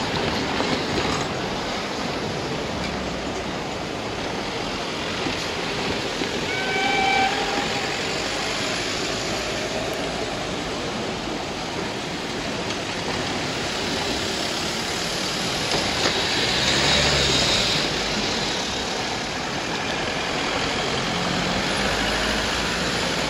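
TY42 2-8-0 steam locomotive working its train away: a steady rush of steam and exhaust, with a short whistle toot about seven seconds in and a louder swell around seventeen seconds.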